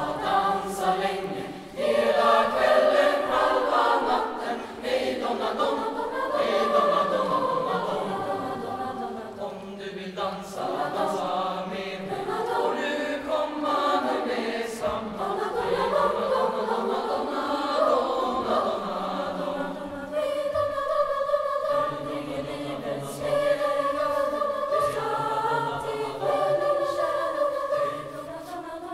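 Mixed youth choir of boys and girls singing together, under a conductor.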